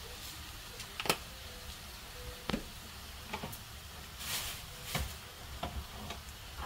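Faint steady hiss of a pan of stir-fried shredded potatoes, still sizzling a little just after the heat is turned off. Several short, light clicks and taps of kitchen utensils sound over it.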